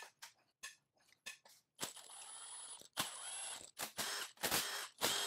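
A few sharp metal clicks, then a Milwaukee M18 cordless impact driver running in about five short bursts, spinning out cylinder head bolts.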